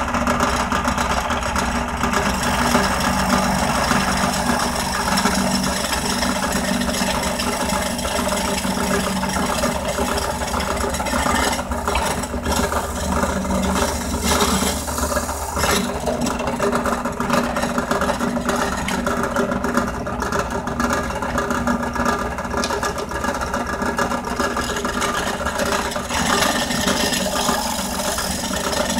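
Central Machinery 8-inch 5-speed bench drill press running steadily at about 1600 RPM, drilling a titanium twist bit through a 2x4.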